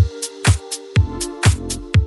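Electronic dance music: a kick drum about twice a second with sharp off-beat hits over a steady synth chord.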